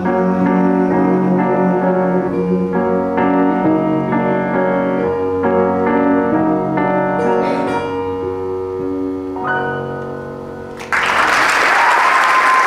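Grand piano playing the closing chords of a song, the notes ringing and fading out. Then audience applause breaks in suddenly near the end.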